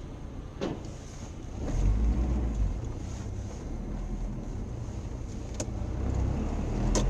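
Car driving, heard from inside the cabin: a steady low engine and road rumble that swells louder twice, with a few sharp clicks.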